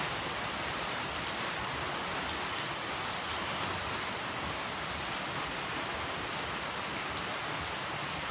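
Steady rain falling, an even hiss with single close drops clicking now and then on top.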